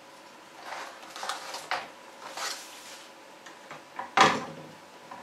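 Cardboard packaging scraping and rustling as a computer motherboard is lifted out of its box tray, with one sharp knock about four seconds in.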